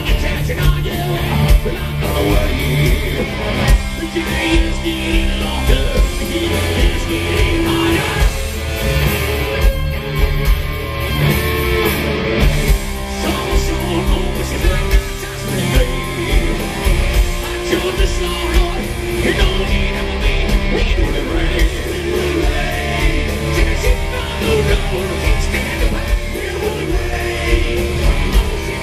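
Hard rock band playing live, with electric guitars, drums and a man singing.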